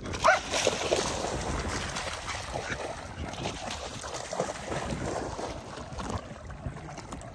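Several dogs splashing as they wade and run through shallow water, a steady churning wash of water.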